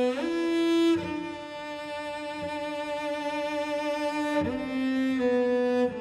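Solo cello bowing long held notes, gliding between them: a slide up just after the start, one long note, then a slide down about four and a half seconds in.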